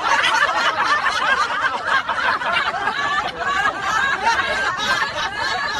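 Several people laughing and snickering together.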